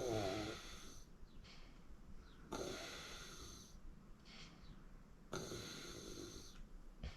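A person snoring in sleep: three loud snores about two and a half to three seconds apart, each followed by a softer breath.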